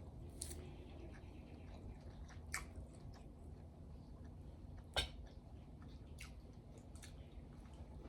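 A person chewing crunchy grilled steak, with scattered crisp crunches and mouth clicks; the sharpest crunch comes about five seconds in.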